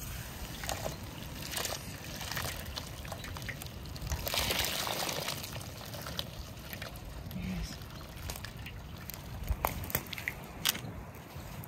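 Hot water poured from a cast-iron cauldron over a goose in a metal basin, splashing and trickling, heaviest about four seconds in, with a few small knocks. The pour scalds the feathers loose for plucking.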